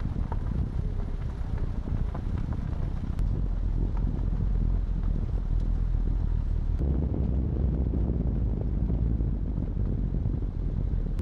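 Car driving: a steady low rumble of engine and road noise, which grows heavier about seven seconds in.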